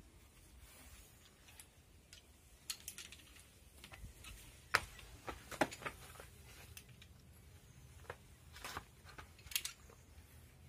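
Scattered faint clicks and scuffs from a rock climber at the start of a route: his hands and shoes on the rock and the rope and carabiners of his harness gear, the sharpest click about five seconds in.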